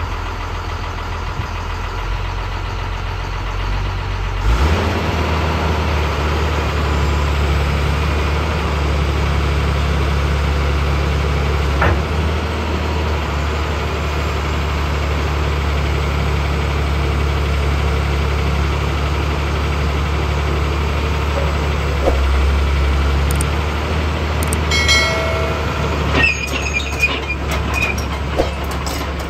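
Caterpillar 320L excavator's diesel engine running steadily, stepping up to a higher, louder engine speed about four seconds in. High-pitched squeaks and clicks come in near the end.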